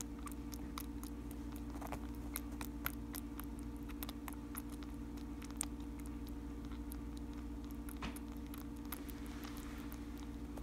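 Baby cottontail rabbit suckling formula from a syringe nipple: faint, irregular wet clicks several times a second, over a steady low hum.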